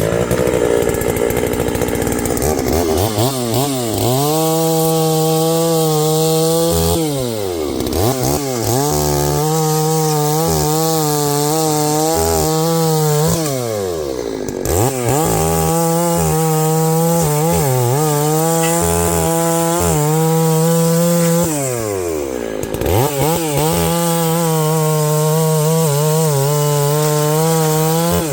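Two-stroke chainsaw running at full throttle while bucking a felled maple log. The throttle is let off three times and the engine revs back up each time.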